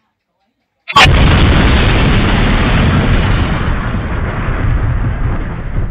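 A large explosion: one sharp blast about a second in, then a long, low rumble that slowly fades.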